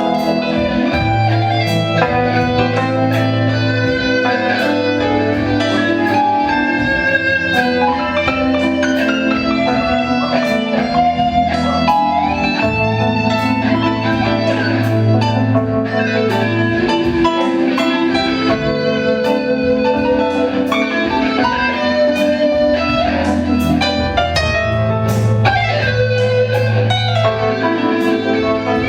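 Instrumental passage of a live band: guitar with keyboards playing sustained melodic lines over a steady bass, with regular sharp percussive ticks, and no singing.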